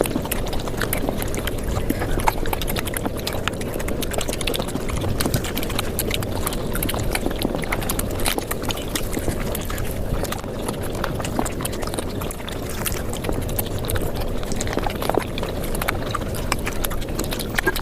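Chewing and mouth sounds of someone eating paratha and luchi flatbread, sped up five times so that they run together into a dense, rapid patter of clicks and smacks.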